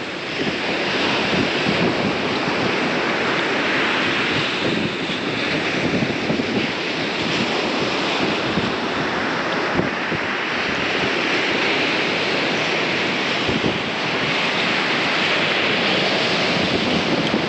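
Ocean surf breaking and washing on a sandy beach, swelling and easing every few seconds, with wind buffeting the microphone.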